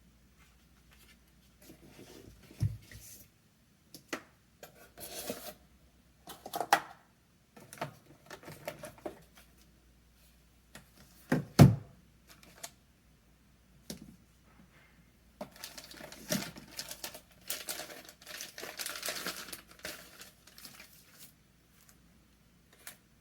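Product packaging being unboxed by hand: wrapping rustling and tearing, with scattered knocks and one loud thump about halfway through, then a longer stretch of crinkling.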